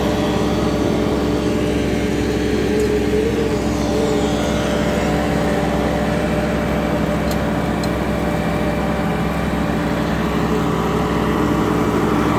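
Asphalt paver's diesel engine and hydraulics running steadily while laying hot mix, a constant even hum.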